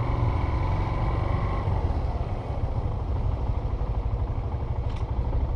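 Vehicle engine and road rumble heard from inside the cabin while driving slowly, a steady low drone with a faint whine that fades out in the first two seconds.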